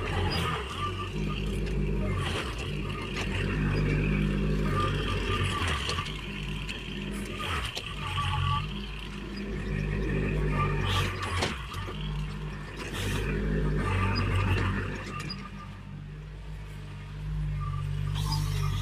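Diesel engine of a Kubota tracked machine running, its pitch and load shifting in steps as it works, with a few sharp knocks.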